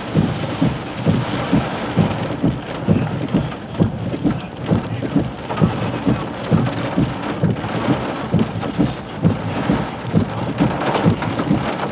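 Heavy thunderstorm rain pelting down, with frequent dull low thumps, about two to three a second.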